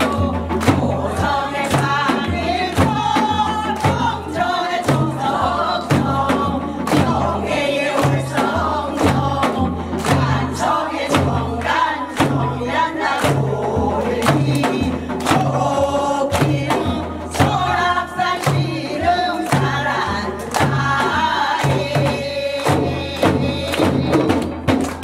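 A group of women singing a Korean folk song in unison, keeping time on sogo hand drums with a larger drum beside them; low drum beats fall evenly, about three every two seconds, under the wavering sung melody.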